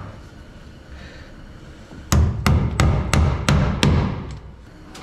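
A hammer driving a nail into a wooden stud to fasten a PEX pipe strap: about seven sharp, evenly spaced blows, about three a second, starting about two seconds in.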